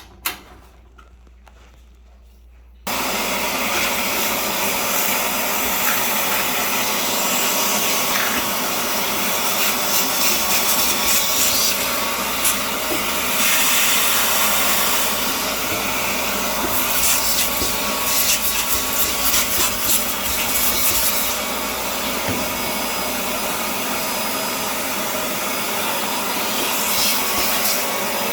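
A vacuum cleaner switched on about three seconds in, then running steadily with a loud rushing noise and short crackles and rattles on top.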